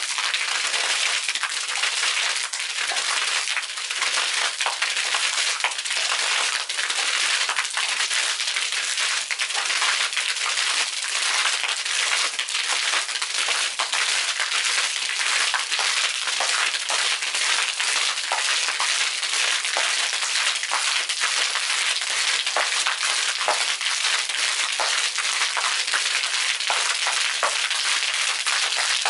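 Water from a submersible arching fountain jet splashing steadily into a pool and spattering onto the concrete deck as a stream of droplets, a dense patter of many small splashes.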